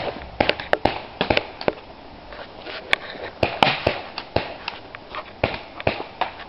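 Paintball markers firing: an irregular run of sharp pops, several in quick succession around one second in and again around three to four seconds in.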